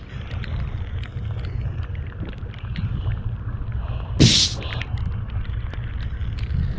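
Steady low rumble of wind and the boat on open sea, with scattered small ticks and one loud sharp knock about four seconds in.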